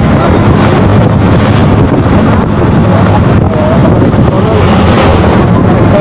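Heavy wind buffeting the microphone of a moving motorcycle, over the steady drone of its engine.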